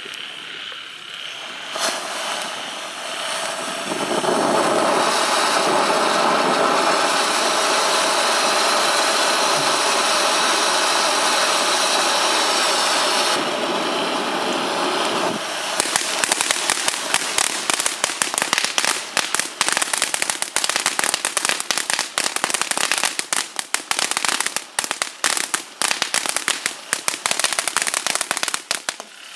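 Miracle Fireworks Night Owl firework burning: a hiss that builds and holds steady for about ten seconds, then gives way at about the halfway point to dense, rapid crackling that runs on until near the end.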